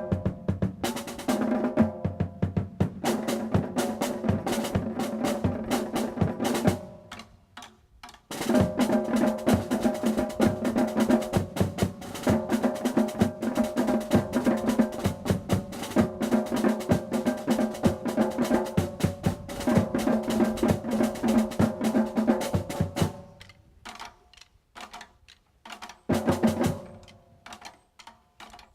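Community drumline of marching snare and bass drums playing a fast cadence with rolls. There is a short break about seven seconds in, and near the end it thins to scattered separate hits.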